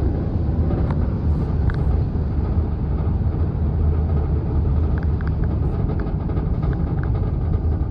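Steady low rumble of a car driving along a road, the engine and tyre noise heard from inside the moving car.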